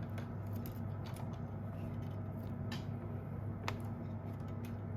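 A few small clicks and knocks as a soldering iron's cable connector is handled and plugged into the front of its power supply, over a steady low hum.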